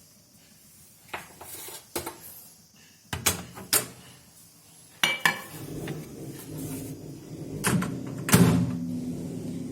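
Metal knocks and clicks as a baking tray is loaded into a preheated electric oven and the oven door is handled, then a steady low hum of the oven running starts about five seconds in, with a few more knocks over it.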